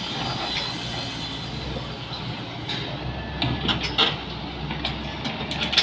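Daewoo wheeled excavator running at work, its diesel engine a steady low hum, while the bucket digs and lifts soil. In the second half come a cluster of sharp knocks and clanks from the bucket and arm.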